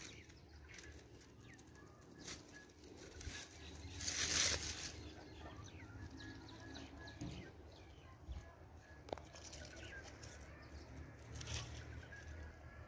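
Outdoor rural ambience of birds calling in short chirps, over a steady low rumble, with a brief loud rushing noise about four seconds in.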